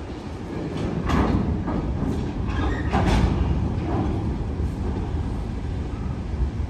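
Freight cars of a long CSX train rolling past: a steady low rumble of steel wheels on rail, with several sharper metallic noises about one to four seconds in.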